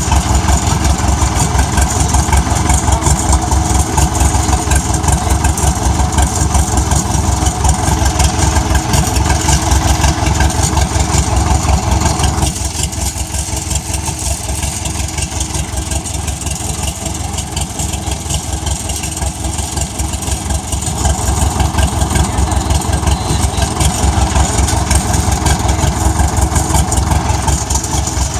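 Diesel engine of an International Harvester TD7E crawler bulldozer running steadily with a fast, even firing beat. About halfway through it eases off and runs quieter and duller for several seconds, then picks up again.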